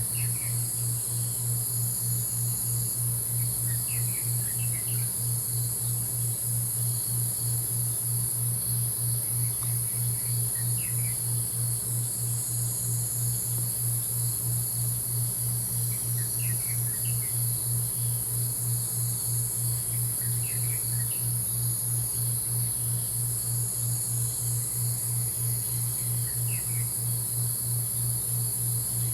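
Steady high-pitched chorus of crickets or other insects, with short bird chirps every few seconds and a low, quickly pulsing hum underneath.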